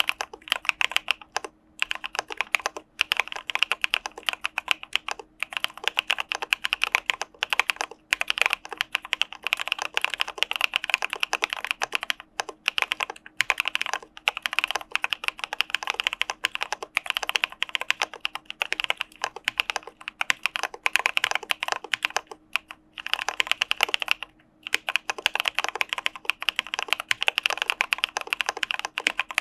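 Typing on an Arisu Alice-layout mechanical keyboard fitted with Cà Phê Sữa Đá linear switches: rapid, continuous keystrokes broken by a few brief pauses.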